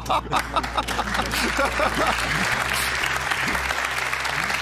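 Studio audience applauding and laughing. Laughter at the start gives way to steady applause from about a second in.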